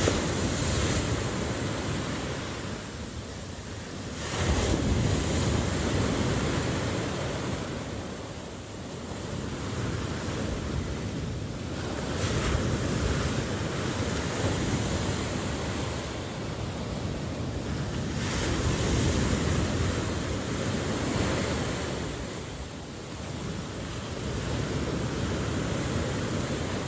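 Ocean waves breaking and washing ashore, the surf swelling and ebbing every few seconds, with wind noise.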